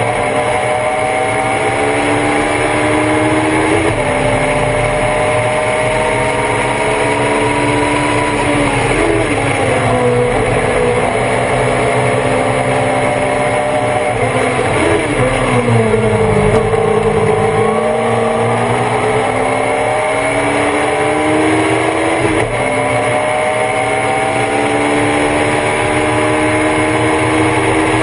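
Thunder Roadster race car engine heard on board at racing speed: it pulls up through the revs, shifts up about four seconds in, drops in pitch twice as it slows and shifts down for corners, then pulls hard again with further upshifts later on. Steady wind and road noise run underneath.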